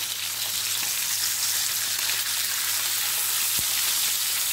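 Whole fish shallow-frying in hot oil in a non-stick pan, a steady high sizzle, while a slotted plastic spatula turns them over to fry the other side. There is a faint knock about three and a half seconds in.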